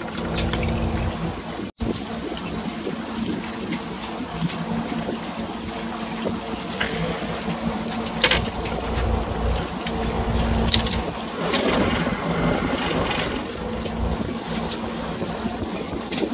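Water sloshing and splashing against the side of a fishing boat at sea, over a steady low hum and low wind rumble on the microphone, with scattered small knocks; the sound cuts out for an instant about two seconds in.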